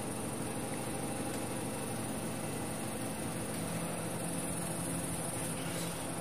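Steady high-pitched trilling of insects, with a faint low hum underneath.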